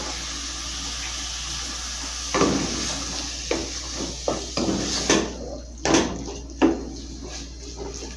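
Wooden spoon stirring and mashing cooked chayote in a metal pot on the stove, knocking against the pot about half a dozen times from about two seconds in. A steady hiss runs beneath and drops away about five seconds in.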